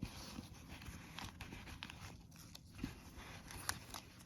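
Quiet handling noise: soft rustling of a fabric dust bag and a small leather card case, with a few light clicks and taps, the sharpest near the end.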